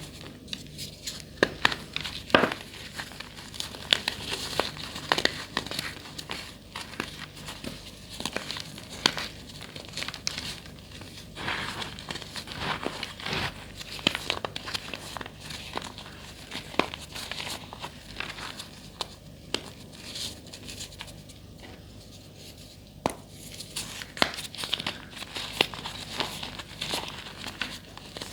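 Blocks of gym chalk being crushed and crumbled, a continuous crunching crackle with many sharp snaps.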